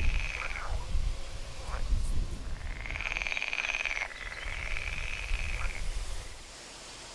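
Frogs calling in a chorus of rapid pulsed croaks, in two long bouts, over a low rumble; the calls stop about six seconds in, leaving a faint steady hiss.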